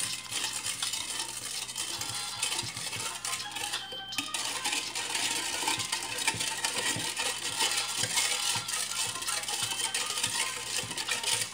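White plastic spoon stirring green gelatin in hot water in a stainless steel bowl, knocking and scraping against the metal sides over and over, with a brief pause about four seconds in. This is the stir that dissolves the gelatin powder in the boiling water.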